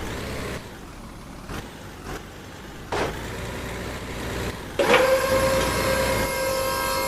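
Marble run rolling noise with a few clicks, then about five seconds in a loud, steady horn-like blast starts and holds, a single pitch with many overtones, like a truck horn.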